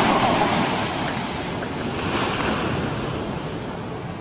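Sea waves rushing and washing in, with wind on the microphone. The rush is loudest at the start and eases off.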